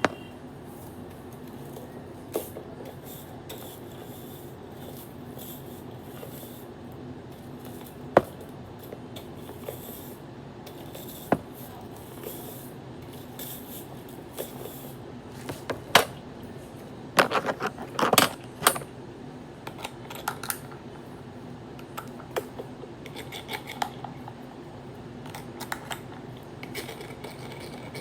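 Scattered sharp clicks and taps of small objects being handled, with a quick flurry of them about two thirds of the way through, over a steady low hum.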